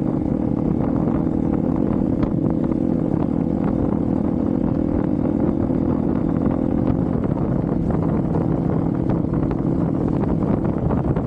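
Hero XPulse 200's single-cylinder engine running steadily under riding load off-road, with scattered clicks and knocks over the engine note.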